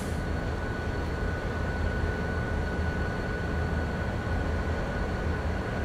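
Steady low rumble of an idling engine, with a faint steady high whine.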